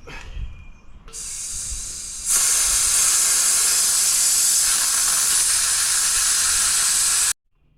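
Compressed air hissing out of a McGraw 21-gallon oil-free air compressor's tank as it is bled down. It starts softly about a second in, turns much louder and steady about two seconds in, and cuts off sharply near the end. The tank pressure is being lowered from its cutoff to about 120 psi, below the 135 psi cut-in, so the pressure switch will start the motor.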